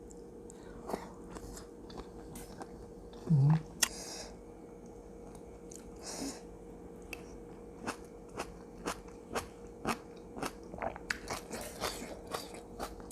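Close-miked chewing and biting on a spicy Thai seafood salad with raw vegetables, with a run of sharp crunches that grows busier in the second half. A brief low hum-like mouth sound comes about three seconds in.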